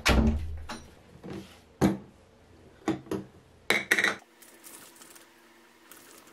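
Small household objects being handled and set down: a thud, then a string of short, sharp knocks and clinks at uneven intervals. About four seconds in, the background changes abruptly to a quiet, steady low hum.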